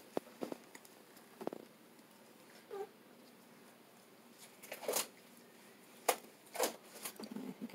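A newborn baby's short whimper about three seconds in, among rustles and sharp clicks of towels and gloved hands rubbing the baby dry.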